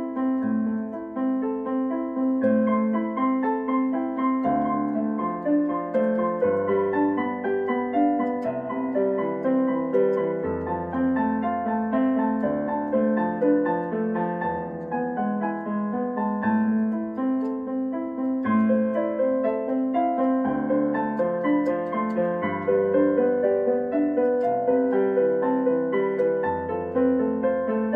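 Piano playing a slow, calm piece: a melody over low bass notes that recur every couple of seconds.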